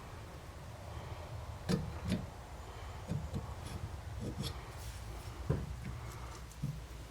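A handful of light, irregular knocks and clicks of metal hand tools at work on the broken bolt, a screw extractor being fitted into the drilled bolt, over a steady low hum.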